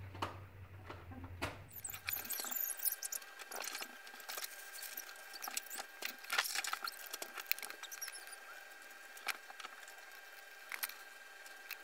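Soldering work on a circuit board: scattered light clicks and taps, with a few faint high squeaks, over a faint steady high tone.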